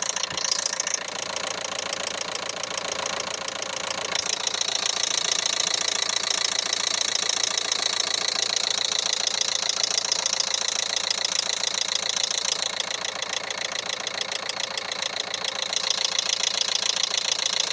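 Renault Megane 3's 1.5 dCi K9K four-cylinder diesel engine running with a fast, steady knock, which the owner puts down to the timing belt having jumped one tooth.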